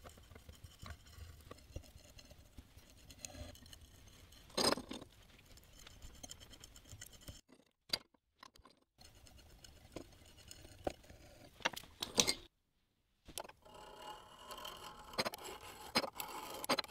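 Faint metallic clicks, scrapes and clinks of hand work on a steel flange: a hand tap being turned in the bolt holes, then a clamp and small bolts being handled. One sharper knock about five seconds in, and the sound drops out to silence twice briefly.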